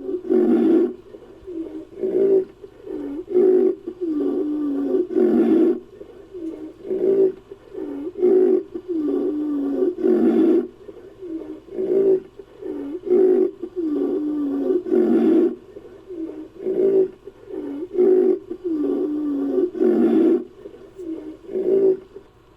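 Designed creature sound effect of an imaginary rhinoceros, made from a woolly rhinoceros sound effect: a long series of loud, deep calls, one every second or two, some dipping in pitch.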